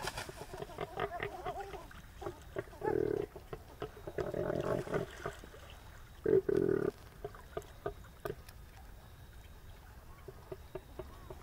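Animal calls: three short, low calls among scattered clicks and taps.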